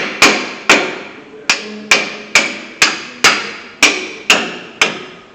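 A hammer striking metal brake parts about twice a second, around ten blows, each with a short metallic ring.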